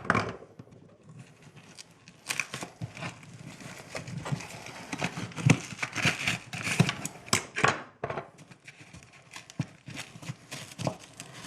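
Utility knife blade cutting through drywall: a run of uneven scraping, tearing strokes with short pauses, as the opening for an electrical box is cut out of the wall.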